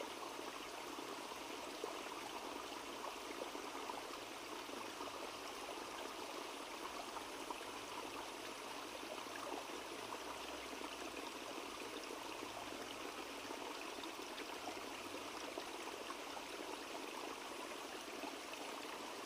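Small forest stream running, a steady even rush of flowing water.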